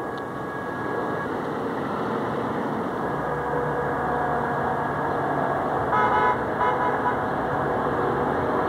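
Approaching Metra commuter train sounding its horn in two short blasts about six seconds in, over a low rumble from the train that builds as it nears.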